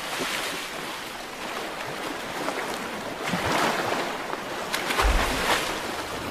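Sea water rushing and splashing around a surfacing humpback whale as it lifts its tail flukes and goes under, with a louder splash and a low thud about five seconds in.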